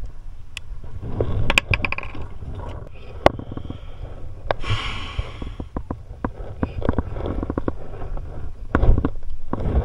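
Handling noise of a fishing rod and spinning reel on a plastic kayak: irregular clicks, knocks and scrapes, with a brief rushing sound about five seconds in.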